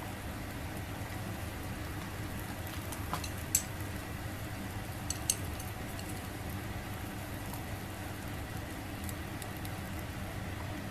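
A steady low hum under a soft hiss, with a few sharp little pops about a third and half of the way in. The pops are typical of squid grilling on a wire net over a solid-fuel burner.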